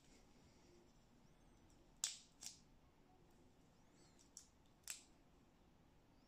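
Four short, sharp clicks of small chrome metal fitting parts being handled and knocked together: two about two seconds in, two more about four and a half seconds in, over near silence.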